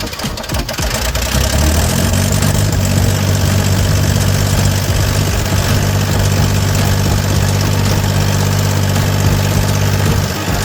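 Gehl 4640 skid steer's Deutz diesel engine coming up to speed over the first two seconds, then running steadily.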